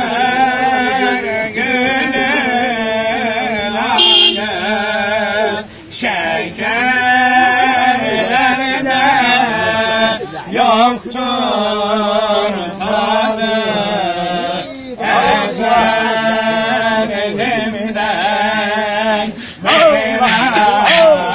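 Group of men chanting a devotional hymn, a lead male voice singing ornate, wavering phrases over a steady low held note, with short pauses for breath between phrases.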